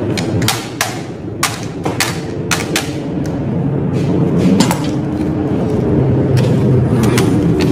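Mallet tapping the ends of freshly laid copper coils down into the slots of an electric motor stator, so the windings seat and don't lift. Irregular knocks, most of them in the first three seconds, over a steady low hum.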